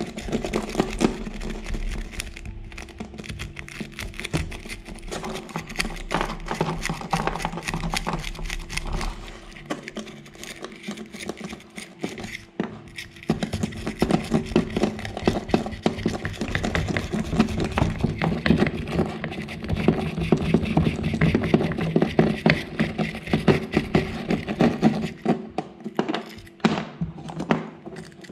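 Rapid scratching and scrubbing of a homemade steel-wire brush, made from a frayed steel cable, working dirt out of the inside of a scooter carburetor's body.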